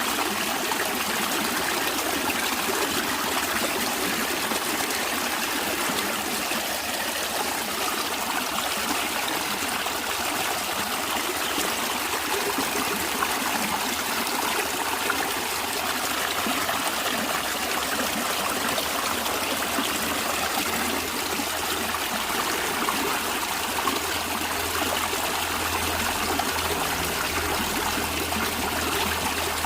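A stream of water flowing in a steady rush with trickling. A low rumble comes in beneath it in the last several seconds.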